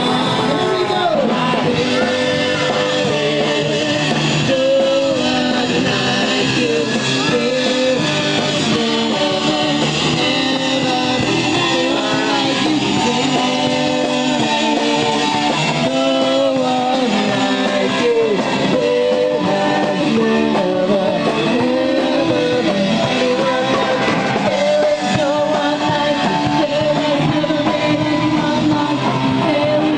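Rock band playing, with a singer over electric guitar and drums.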